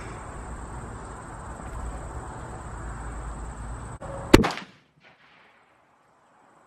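A single .50 BMG rifle shot about four seconds in: one very loud, sharp blast.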